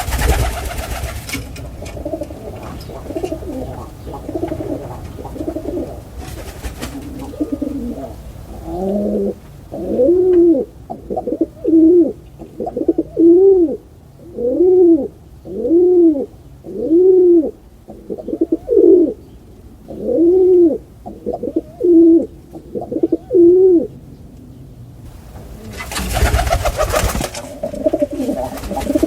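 Pigeons cooing: a soft, overlapping murmur of coos, then a run of about a dozen loud, evenly spaced coos, each rising and falling in pitch, about one every second and a half. Short bursts of noise come near the start and again near the end.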